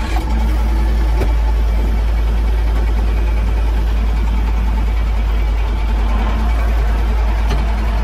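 Diesel engine of a Shanghai Sich TB-series 4x4 farm tractor running steadily, with a heavy, even low rumble.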